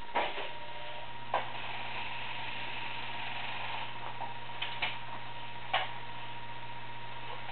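Wurlitzer 1250 jukebox's record changer working after a selection is pressed: a sharp click from the selector button, then a steady motor hum with scattered clicks and clunks as the mechanism brings a 78 rpm record to the turntable.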